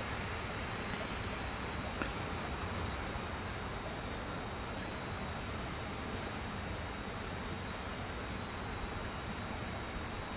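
Spring water at the source of the river Dyje trickling steadily over mud and stones in a shallow flow.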